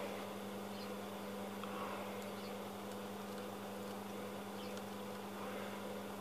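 Steady electrical mains hum and buzz from a powered-up valve amplifier and its power supply, with a few faint clicks.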